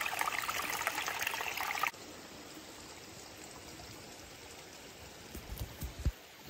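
Shallow creek water running and splashing close by as a soft water-filter pouch is held in the flow to fill, cutting off abruptly about two seconds in. After that only a faint steady hiss, with a few soft low thumps of handling near the end.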